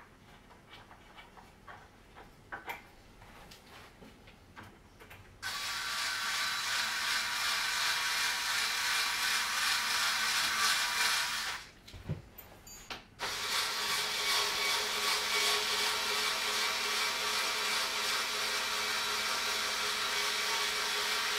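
A handheld power tool working on a pine bed frame: its motor runs steadily for about six seconds, stops with a few knocks, then runs again for about eight seconds. Before it starts there are only faint scattered clicks.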